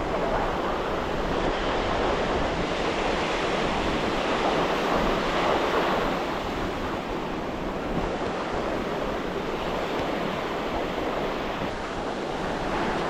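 Ocean surf washing onto a sandy beach, a steady rush that swells for a couple of seconds near the middle, with wind on the microphone.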